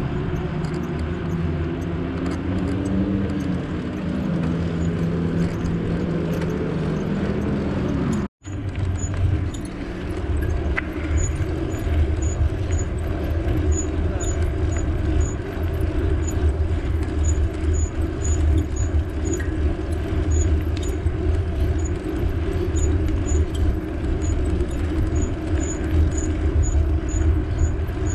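Wind buffeting the microphone with road and traffic noise on a moving bicycle. An engine passes with a slowly gliding pitch in the first several seconds. The sound cuts out for a moment about eight seconds in, then the fluttering low wind rumble continues.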